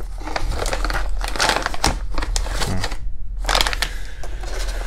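Thin plastic bag crinkling and rustling as hands unwrap and handle a pistol inside it, over a steady low hum.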